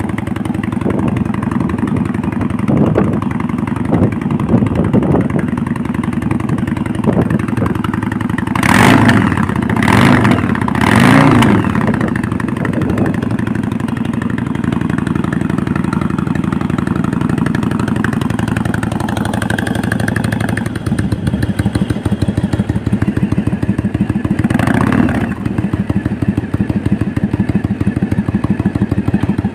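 Yamaha Drag Star 1100's air-cooled V-twin running through a Caiman Custom "Deinosuchus" aftermarket exhaust, idling with throttle blips: a few short ones early, three bigger revs about nine to eleven seconds in, and one more near the end.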